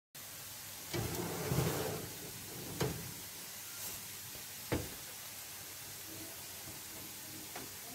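Kitchen handling sounds: a brief scraping rustle and three sharp knocks, about a second apart at first and then two seconds, over a steady hiss.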